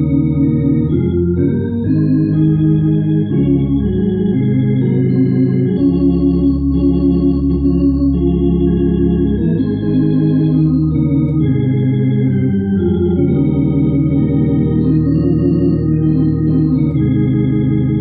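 Hammond console organ playing a hymn: sustained full chords over a steady bass line, changing every second or two without a break.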